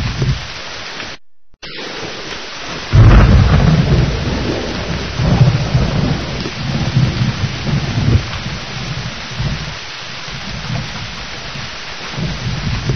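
Thunderstorm: steady rain hiss with rolling thunder rumbles, the heaviest starting about three seconds in and swelling again twice, after a brief gap of silence just over a second in.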